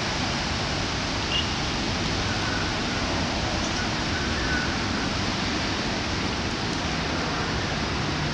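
Steady hiss of rain falling on standing floodwater.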